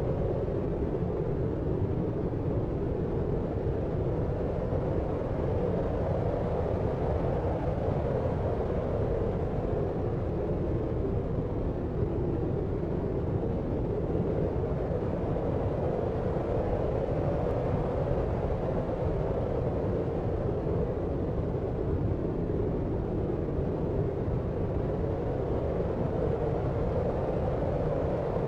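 Steady, deep noise of a sleep-noise track: a dull, low rushing sound with little treble, unchanging and without separate events.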